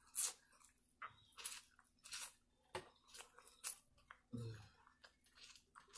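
Close-up eating of corn on the cob: a series of short, crisp bites and chews as kernels are bitten off the cob, one every half second to a second.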